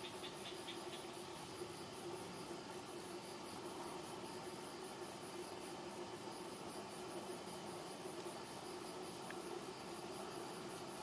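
Singing insects: a high, rhythmic chirping that pulses about three to four times a second, over a faint steady low hum. A second, lower insect trill stops about a second in.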